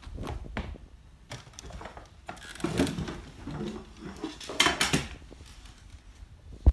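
Footsteps on a hardwood floor and phone handling noise: scattered knocks and clicks, with two louder spells of rustling near the middle.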